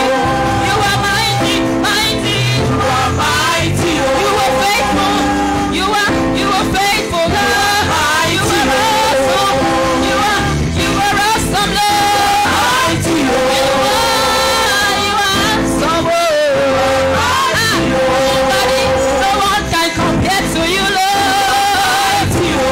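Gospel choir singing a praise song with a woman's amplified lead voice, backed by a band with a steady beat.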